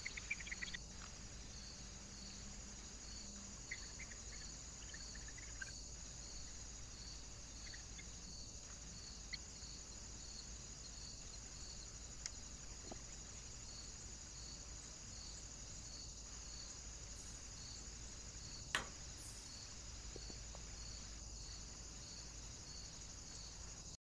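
Faint, steady high chirring of crickets with a regular pulse about twice a second, and a few faint short chirps. One sharp click about nineteen seconds in is the loudest sound.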